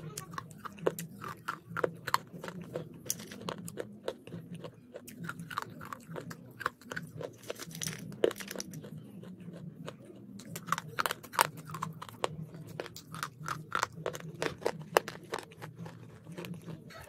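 Close-up crunching and chewing of boiled slate pencils: many sharp, crisp crunches, often several a second, as the brittle sticks are bitten and ground between the teeth.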